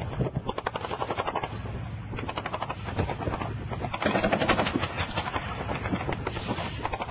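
Heavy weapons fire in rapid bursts of sharp reports, many per second. Two rapid runs come in the first half, then a louder, denser stretch from about four seconds in.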